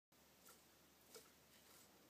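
Near silence: room tone, with two faint clicks about half a second and a second in.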